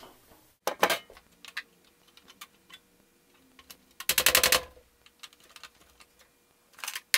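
Sharp clicks and knocks of small computer parts and hardware being handled at an opened desktop tower case, with a short rapid rattle about four seconds in, the loudest sound.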